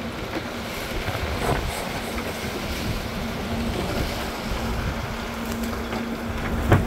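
A sportfishing boat's engines running steadily, a constant drone under the rush of wind and churning wash at the stern. A sharp knock a little before the end.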